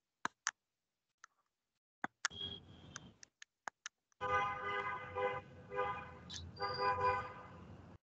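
A few sharp clicks, then a two-tone vehicle horn honking several times in a row, each honk lasting about half a second to a second.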